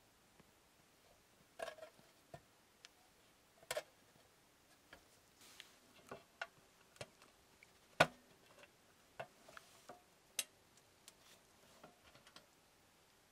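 Antique brass hand warmer being handled: scattered light metallic clicks and taps from its hinged lid and latch as it is opened, the sharpest click about eight seconds in.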